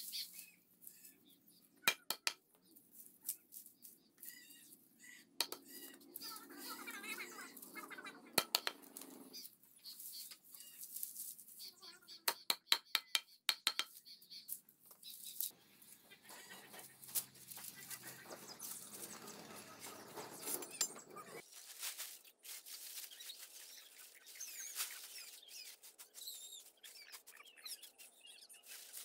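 A cleaver chopping dry stalks against a block on the ground: sharp single knocks, with a quick run of several strikes about halfway through. Between the knocks there is the dry rustle of the brittle stalks being gathered and handled.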